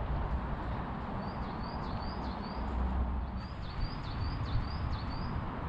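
A small songbird singing a quick, repeated two-note phrase, a high note then a dip, in two runs about a second apart, over a steady low rumble.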